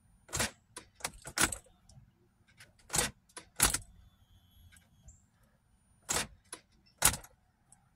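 Car keys jangling and a string of sharp clicks as the ignition key is turned on and off several times. No fuel pump hum is heard behind them: the fuel pump is not kicking on.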